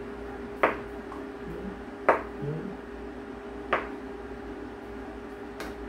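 Kitchen knife slicing through a block of tofu and knocking on a plastic cutting board: four sharp chops about a second and a half apart, over a steady low hum.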